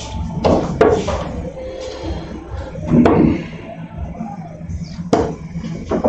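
Three steel-tip darts thudding one after another into a Winmau Blade 5 bristle dartboard, about two seconds apart, each a short sharp knock.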